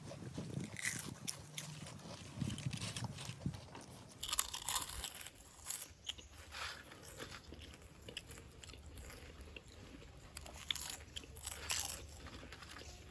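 Two people crunching and chewing mouthfuls of crisp potato chips as fast as they can, with a run of irregular crunches.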